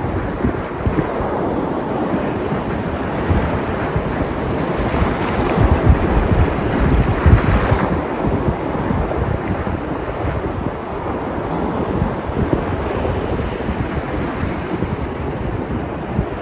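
Sea surf: waves washing and breaking on the shore in a continuous rush, with one louder, brighter wave breaking about seven seconds in. Wind buffets the microphone throughout.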